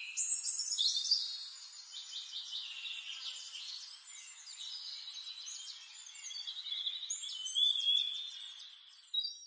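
A chorus of songbirds chirping and calling over one another, many short high whistled notes and trills overlapping throughout.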